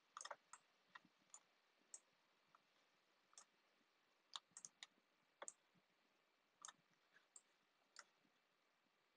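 Faint, irregular clicking of a computer mouse, more than a dozen short clicks, some in quick pairs and triplets, as shapes are selected, dragged and rotated in a 3D modelling program.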